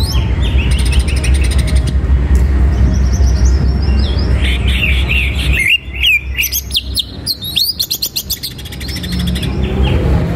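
Greater green leafbird (cucak ijo) singing a fast, varied song of sharp chirps, slurred whistles and rapid trilled bursts. Underneath is a steady low rumble that drops out for about three seconds past the middle.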